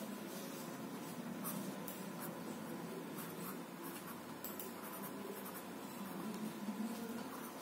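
Pencil sketching on paper: a run of short, light scratchy strokes as lines are drawn in.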